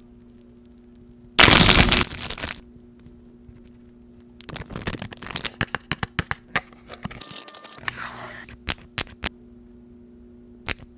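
Packaging being opened and handled: a loud tearing rip about a second and a half in, then a run of crinkling, clicks and taps, with a few more sharp clicks near the end.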